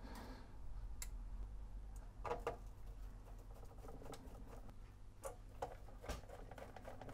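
Faint, scattered small clicks and taps of a hand screwdriver driving a screw into the metal chassis of a Sharp VZ-3000 vertical record player until it is tight.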